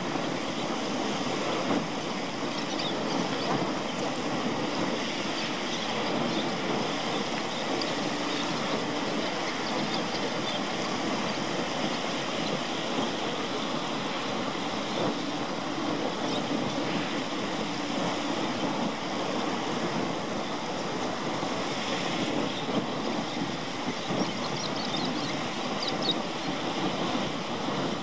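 Small waves lapping and washing steadily over a shallow sandy shore.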